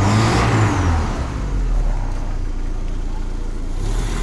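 Peugeot 505 engine on its newly fitted carburetor being revved briefly about a second in, then dropping back to a steady run. The owner calls the carburetor's response dull.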